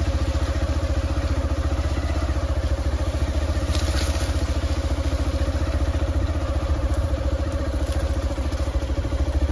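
A small engine running steadily at low speed, with an even, rapid pulse of firing strokes.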